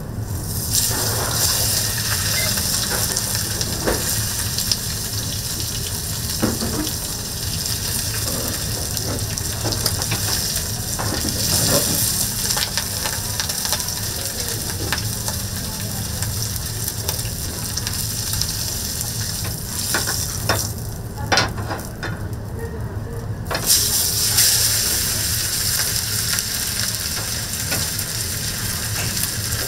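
Beef steak sizzling as it sears on a hot cooking surface: a steady hiss with scattered pops over a low steady hum. The sizzle drops away for a couple of seconds about two-thirds of the way through, then returns.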